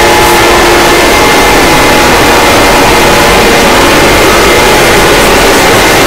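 Emergency alert alarm boosted until it clips, heard as constant, extremely loud distorted noise with a few faint steady alarm tones showing through it.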